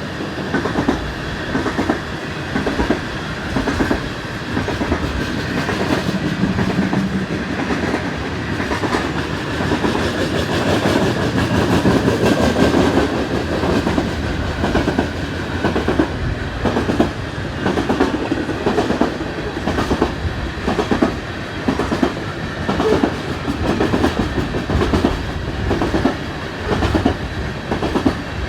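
Loaded coal train's freight cars rolling past, with steel wheels clacking over the rail joints in a steady rhythm.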